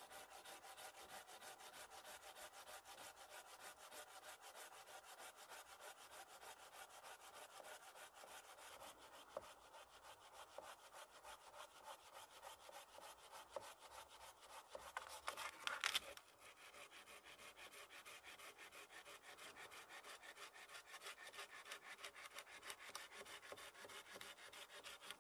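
Hand saw cutting through a wooden branch or stick, a fast even rhythm of back-and-forth strokes at several a second. The strokes build to a louder burst about two-thirds of the way through, stop for a moment, then carry on.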